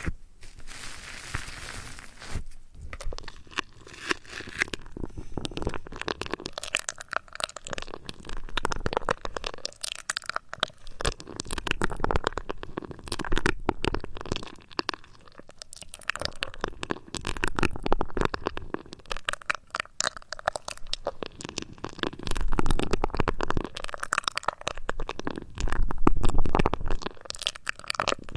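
Close-microphone ASMR trigger sounds: dense, irregular crackling and rubbing right at the microphone, with swells of low rumble.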